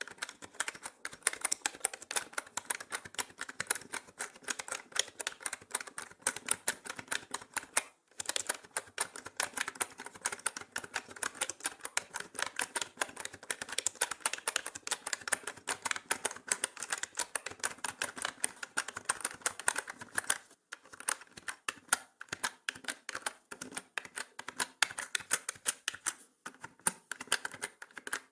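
Continuous fast typing on a mechanical keyboard: dense clacking keystrokes, broken by short pauses about 8 seconds in, about 20 seconds in and near the end.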